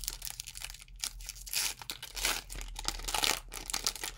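Foil Pokémon trading-card booster pack being torn open by hand, the wrapper crinkling and ripping in uneven crackles, loudest between about one and a half and three and a half seconds in.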